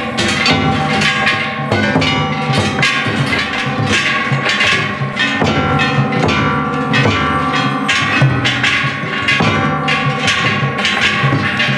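Shishimai festival music: several large brass gongs struck in a fast, steady beat, ringing over each other, with a big taiko drum pounding underneath.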